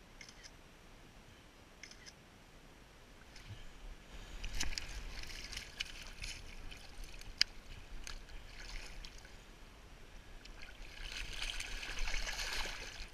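Two faint phone camera-shutter clicks, then scuffing, clattering handling noises with one sharp click. Near the end, water sloshing and splashing as a steelhead is held in a shallow creek by hand and released.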